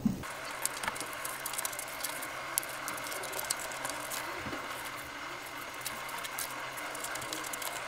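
Scissors snipping through white chart paper while it is handled and turned, with paper rustling: many small irregular clicks and crackles.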